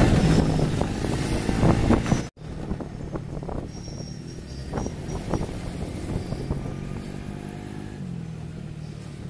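Auto-rickshaw engine running steadily as heard from inside the open cabin while riding, with occasional knocks and rattles from the ride. The sound cuts out abruptly a little over two seconds in and resumes quieter, and the engine pitch shifts near the end as its speed changes.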